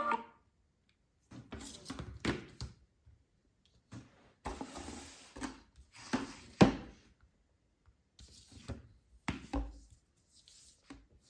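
Scattered knocks, thumps and rubbing of objects being handled, with a louder thump a little past the middle.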